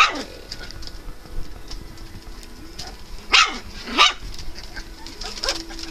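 Three-and-a-half-week-old English Shepherd puppies yipping as they play, with sharp, high-pitched yips at the start and twice in quick succession about three and a half seconds in, and softer small sounds between.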